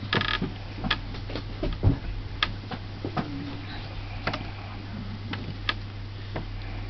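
Irregular light clicks and knocks, about a dozen spread unevenly over several seconds, over a steady low hum, with a brief murmur of a voice about three seconds in.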